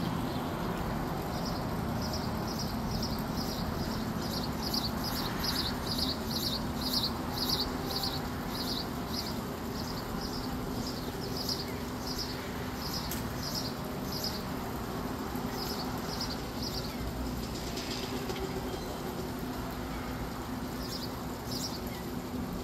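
Steady low hum of a running motor, with a quick run of high chirps, about three a second, over it; the chirps stop about two-thirds of the way through and come back briefly near the end.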